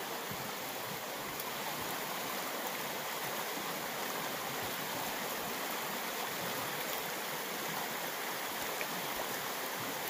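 Shallow river running over rocks and gravel bars: a steady, even rush of water.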